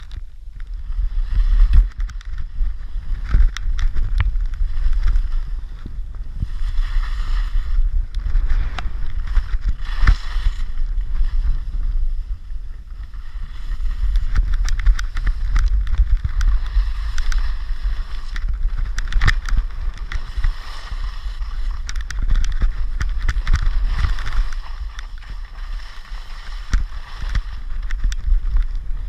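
Wind buffeting a body-worn camera's microphone at speed, heard as a heavy rumble throughout, with the hiss and scrape of edges carving packed snow rising and falling from turn to turn and scattered knocks over bumps.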